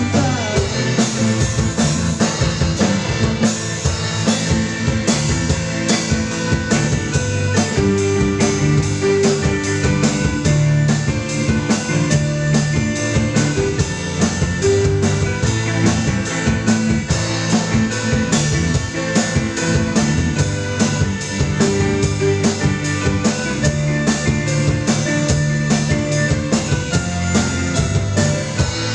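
Live band playing: a drum kit keeping a steady beat under electric guitar and electronic keyboard.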